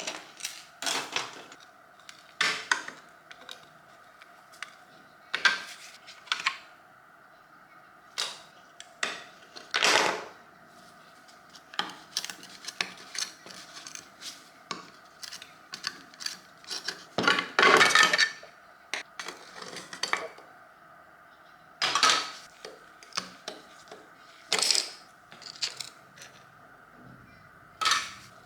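Metal parts and hand tools being handled, with irregular clinks, taps and knocks and a longer clattering rattle a little past the middle, over a faint steady hum.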